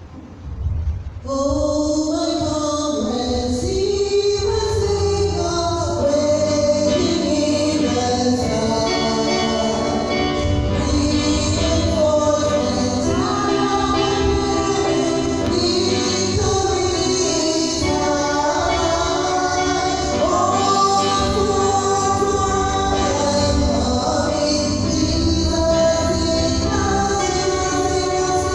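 Gospel hymn sung by a choir of men and women with instrumental accompaniment, starting about a second in after a short pause.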